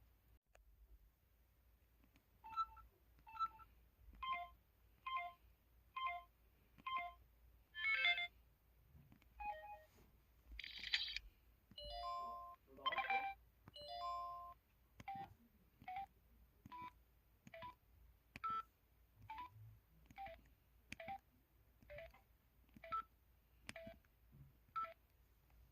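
MS600 mobile phone's 'Digital' keypad button tones: a series of about twenty-five short electronic beeps, each of two or three steady tones, coming roughly once a second, with a few longer, fuller-sounding beeps about halfway through.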